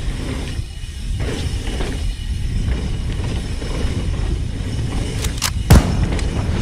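Mountain bike rolling fast down a loose gravel trail: a steady rumble of tyres and wind on the helmet-mounted camera, with a few sharp clatters and one heavy thump about five and a half seconds in.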